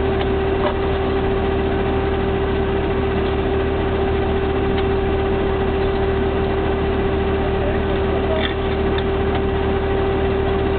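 Engine-driven auger drilling rig running at a steady speed, with a constant hum over a low rumble, as the auger bores into soil and gravel.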